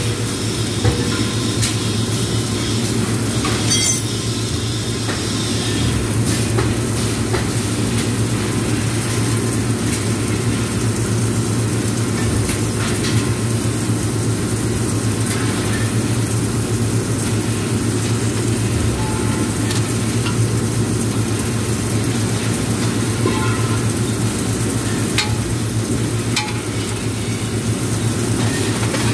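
Submerged arc welder running a continuous weld: a steady electrical hum under an even crackle and sizzle with scattered faint clicks.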